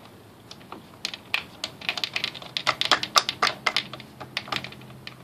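Plastic bump knob being screwed by hand onto a Murray M2500 string trimmer head. It gives a quick, irregular run of sharp plastic clicks and rattles, thickest through the middle.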